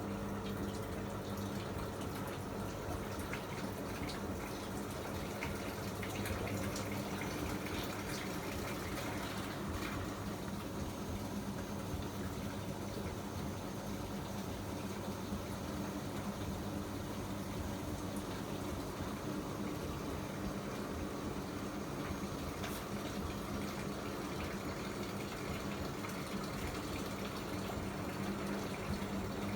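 Miele MedicWash W2585 front-loading washing machine running its hygiene programme: a steady rush of water in the machine over a low, even hum.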